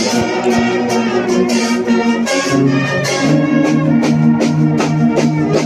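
Guggenmusik carnival band playing live: brass holds loud sustained chords over a steady drum beat, and the chord changes about halfway through.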